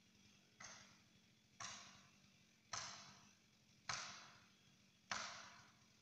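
Five sharp blows about a second apart, each louder than the last and ringing out briefly: a felling wedge being hammered into a tree's cut to tip it over.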